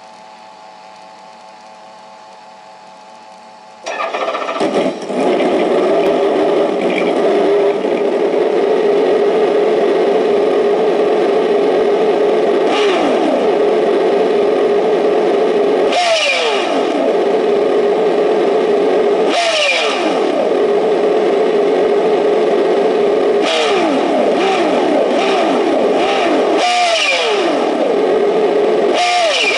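Synthetic engine sound played through an RC car's sound-module speaker. It idles quietly, then about four seconds in jumps to loud, steady high revs. From midway on, the revs drop and climb back about five times, like throttle lifts.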